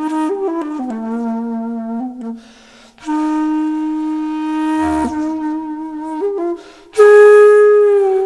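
Background music: a solo flute melody of slow, long-held notes, pausing briefly a couple of seconds in, with a louder, higher note near the end.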